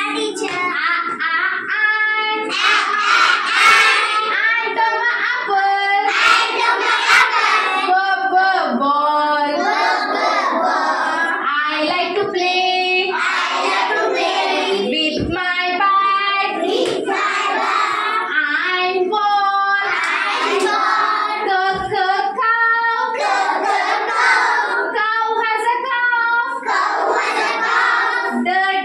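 A group of young children singing an English phonics action song together, with a woman's voice singing along and leading them.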